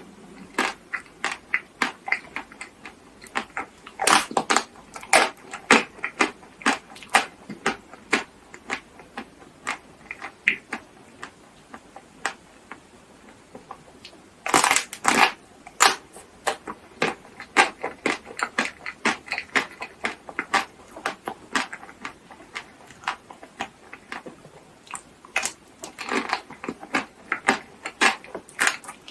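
Close-miked eating: chocolate coating cracking and being crunched and chewed in irregular runs of sharp crackles, with denser bursts about four seconds in, near the middle and near the end.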